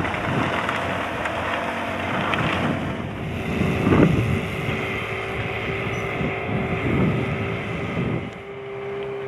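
Gusty wind buffeting the microphone on open water, over a steady boat engine hum that comes through more clearly from about three seconds in.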